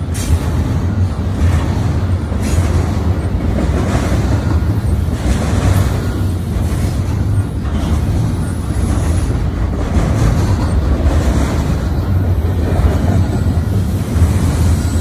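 A double-stack container freight train of well cars rolling steadily past: a continuous low rumble of wheels on rail with irregular faint clicks from the wheels passing over the track.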